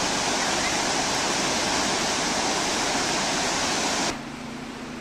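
Loud, steady rush of floodwater pouring over a weir and surging past. It cuts off suddenly about four seconds in, leaving a quiet low steady hum.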